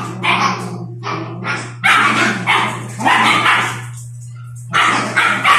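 Puppies barking and yipping in play, short sharp barks in irregular bursts with a brief pause about four seconds in, over a steady low hum.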